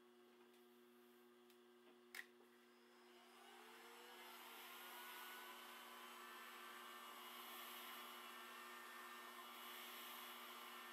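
A handheld heat gun switched on with a click about two seconds in, its fan spinning up with a short rising whine into a steady blowing hiss. A faint steady hum sits underneath.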